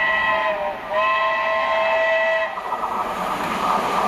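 Whistle of the BR Standard Class 7 'Britannia' steam locomotive: two blasts of the same several-note chord, the second about a second and a half long and cutting off sharply. It is followed by the steady running noise of the approaching train.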